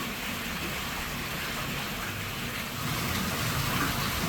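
Steady rain falling, with a low rumble that grows louder about three seconds in.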